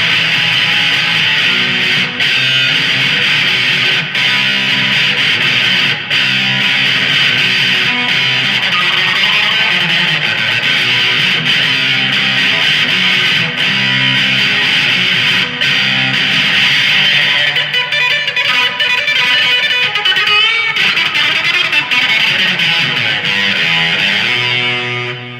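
Gretsch G5435T electric guitar with a chambered body, played through an amplifier: a continuous riff built on a repeating low-note pattern. Sliding notes come in over the last several seconds, and the playing dies away at the very end.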